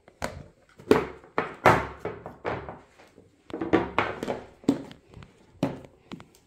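Plastic food storage boxes and their lids knocking as they are handled and moved about on a marble countertop: a dozen or so irregular knocks and thunks.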